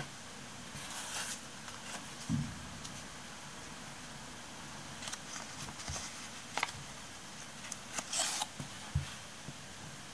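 Paper stickers being handled over a spiral planner page: scattered soft rustles of a sticker sheet and a few light clicks, with two dull taps on the page, over a steady faint hiss.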